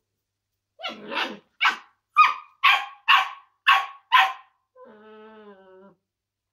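Smooth collie puppy barking at an empty toilet paper roll it finds scary: a run of about eight short, sharp puppy barks, about two a second, then one drawn-out, lower, steady-pitched whine lasting about a second.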